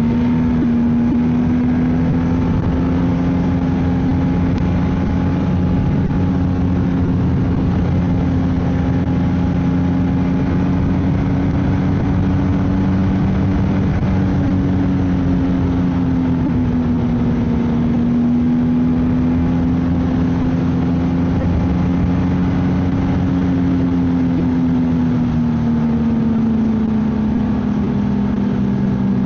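Ski-Doo snowmobile engine running at a steady cruising speed, its pitch drifting gently up and down with small changes of throttle.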